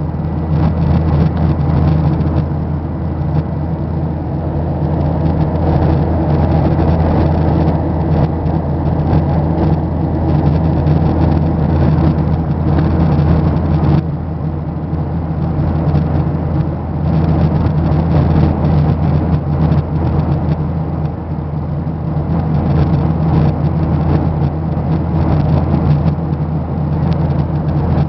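Steady engine and air drone inside an airliner cabin in flight, a loud, even low rumble that holds without a break.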